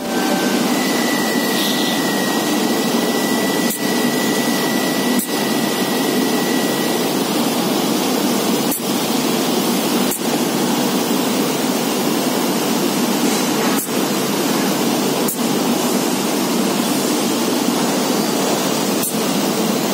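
SAMOA DIRECTFLO air-operated double-diaphragm pump running on compressed air while pumping oil, giving a steady loud hiss with brief dips that come in pairs about every five seconds. A faint high whistle sounds during the first several seconds.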